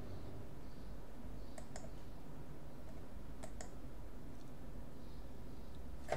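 Computer mouse button clicks: two quick double clicks about two seconds apart, then a single sharper click near the end, over faint steady background noise.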